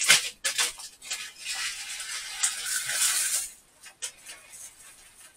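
Dry rice poured into a cooking pot, the grains rattling and hissing for a couple of seconds, with a knock at the start and another about four seconds in.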